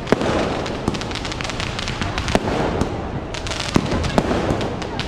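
Firecrackers going off all around: an irregular string of sharp bangs of varying loudness over a steady background din, with a few louder cracks standing out.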